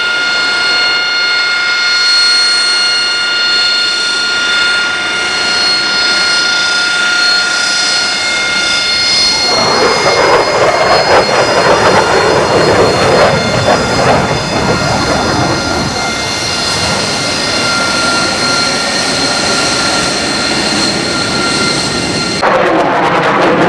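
F/A-18 Hornet's twin jet engines: a steady high turbine whine with overtones, swelling about ten seconds in into a louder rushing roar as the jet passes, then the whine again. Near the end comes a passing jet roar with a sweeping, phasing sound.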